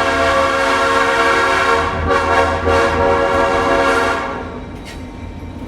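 Nathan AirChime P5A five-chime locomotive horn sounding a long held chord. Its bells mix second- and third-generation castings, giving an off-standard chord of C#, F, G, A# and C#. The horn cuts off about four seconds in, leaving the low rumble of the train.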